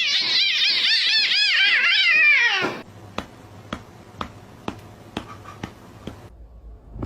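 A pet's loud, high-pitched run of quick rising-and-falling cries, about four a second, stopping after about two and a half seconds. Then come faint, even clicks about two a second over a low hum.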